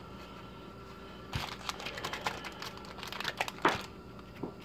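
Crinkling and crackling of a trading-card pack wrapper being torn open and handled, a quick run of rustles and clicks that starts about a second and a half in and is loudest near the end.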